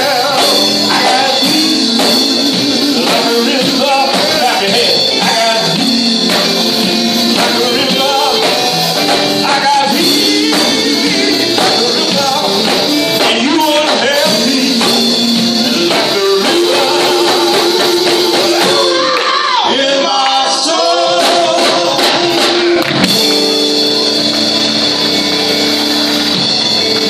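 Live gospel music: singing over a full band, with percussion keeping a steady beat.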